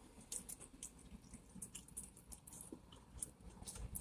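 Faint chewing: soft, irregular wet mouth clicks close to the microphone.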